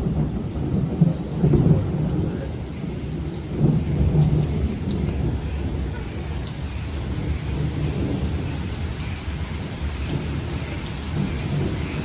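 Thunder from a close lightning strike rolling and rumbling low, with swells about a second and a half in and near four seconds, then slowly fading under steady rain.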